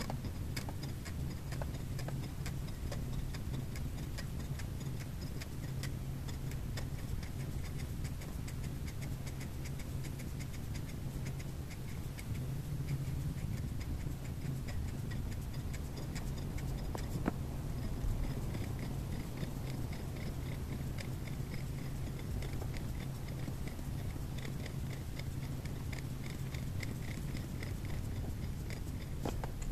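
Regular, even ticking over a steady low hum.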